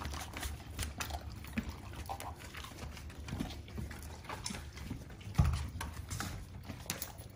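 Two large dogs moving about on a tile floor, their claws clicking and tapping as they nose and carry a rubber treat-dispensing toy, with one louder dull thump about five and a half seconds in.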